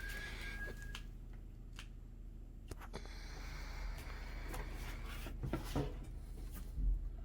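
Light handling noises: scattered small clicks and rustles as oven door parts and screws are handled, a few sharper clicks near the end. A thin, steady whistle-like tone sounds for the first second.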